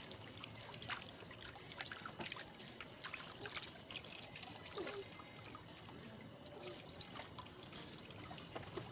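Water trickling and dribbling with many small light splashes in a large plastic bin of bathwater.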